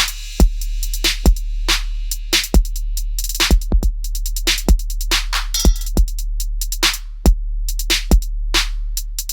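Hip hop style background music: a drum-machine beat with deep sustained bass, sharp kick and snare hits and fast hi-hat ticks.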